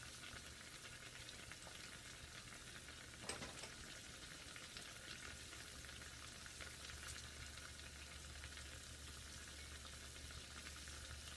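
Cubed eggplant deep-frying in oil in a small cast-iron pan: a faint, steady sizzle. There is one light knock a little over three seconds in.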